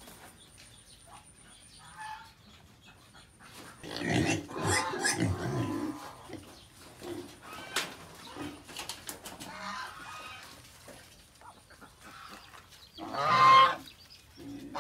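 Pigs grunting in irregular bursts, then a goose calling loudly near the end.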